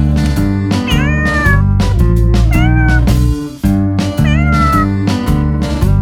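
Kittens meowing three times, each meow rising then falling in pitch, over background music with a steady beat.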